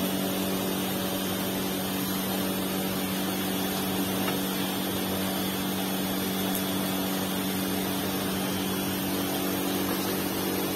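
Steady drone of foundry furnace machinery running: a low hum with an even hiss over it, unbroken, while molten iron is tapped from the tilting furnace into a ladle.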